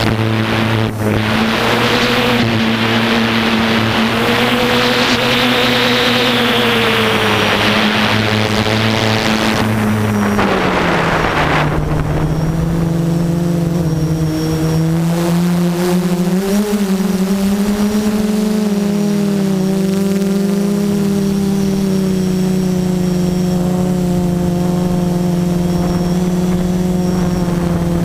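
A DJI F330 quadcopter's brushless motors and propellers whine steadily, heard through the onboard camera, with a loud rushing noise over the first ten seconds. About ten seconds in, the pitch drops and the rush fades as the motors slow, then the pitch wavers a little.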